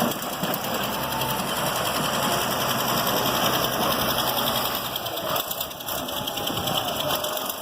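Diesel engine of heavy road-works machinery running steadily while the old road surface is torn up, a dense mechanical rumble with a fine even flutter.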